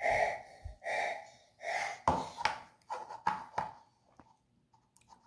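A person breathing out audibly in three breathy puffs about a second apart, followed by a run of light clicks and knocks.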